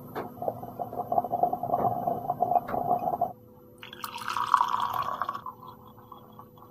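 A glass-topped MokaCrystal stovetop moka pot gurgling and sputtering as it finishes brewing. About four seconds in, coffee is poured from it into a mug.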